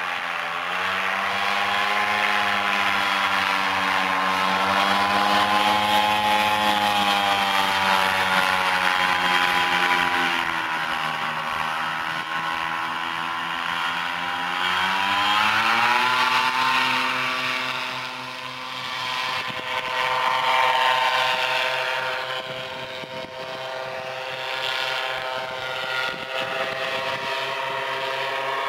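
Walkerjet RR paramotor engine and propeller on a powered paraglider trike, running hard at a steady pitch. About ten seconds in the pitch sags as it is throttled back to touch down on the grass, then rises sharply about fifteen seconds in as power comes back on for the climb-out, and holds steady after.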